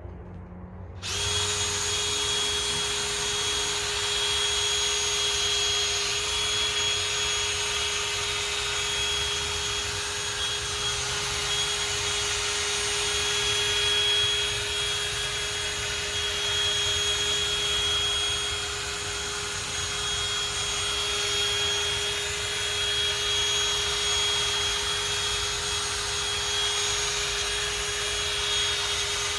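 A power drill starts about a second in and runs at a steady speed, spinning a fine 3000-grit sanding pad against a plastic headlight lens, with a steady motor hum under the hiss of the pad.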